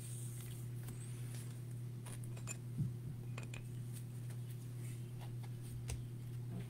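Faint clicks and taps of a plastic top-loaded trading card being handled and set into a display stand, with one louder knock near the middle, over a steady low hum.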